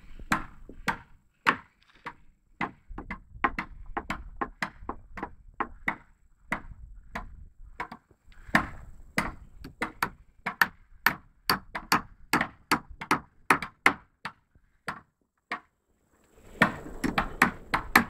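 A hammer striking wooden planks in a long run of sharp, uneven knocks at about two a second, stopping for a couple of seconds near the end.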